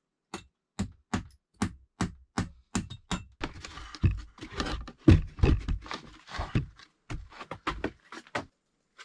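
Hand saw cutting a notch into a wooden log with quick, even strokes, about two or three a second. The sawing starts just after the beginning and stops shortly before the end.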